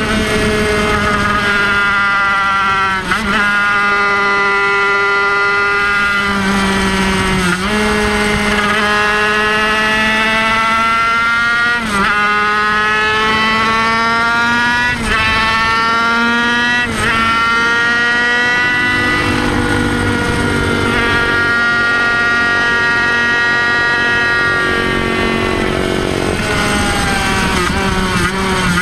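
Kreidler Van Veen 50cc racing motorcycle's two-stroke single-cylinder engine running at high revs, heard from on board. The note breaks briefly and shifts pitch about five times in the first two-thirds, then holds steady.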